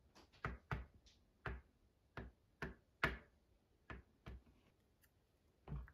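Light taps of a thin tool dotting acrylic paint onto a canvas sheet on a wooden countertop: about ten short, irregular taps, roughly two a second.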